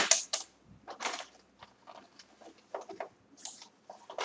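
Faint scattered clicks, taps and rustles of hands handling the plastic body and packing material of an HP Deskjet 1510 printer as it is unpacked, with a brief soft hiss about three and a half seconds in.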